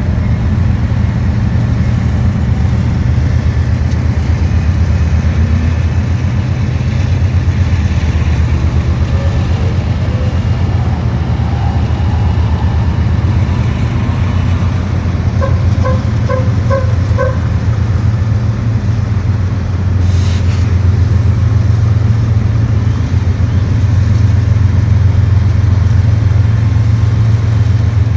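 A vehicle's engine running steadily with a low, pulsing drone. Halfway through come five short, quick beeps, and a brief click follows a few seconds later.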